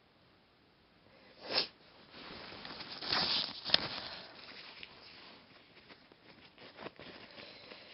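A woman sniffing sharply and breathing noisily through her nose while trying to bring on a sneeze. There is one short sniff about a second and a half in, louder breathy noise around the middle, and a sharp click just after it.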